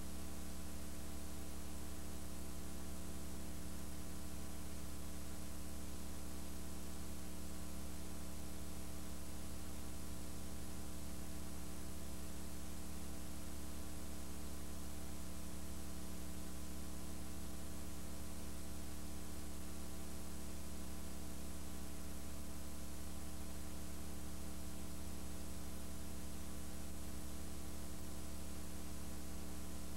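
Steady electrical mains hum over a bed of hiss, with no other sound.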